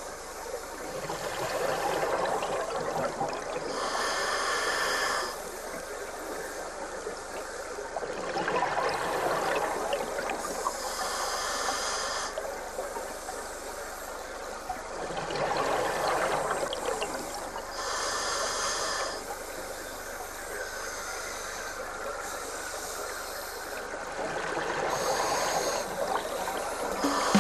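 Scuba diver breathing underwater through a regulator: four slow breath cycles, each a bubbling, gurgling exhalation followed by a short hiss as the demand valve delivers air on the inhale.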